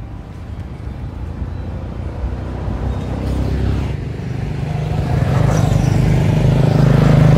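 Motorbike approaching along the road, its engine growing steadily louder and loudest near the end.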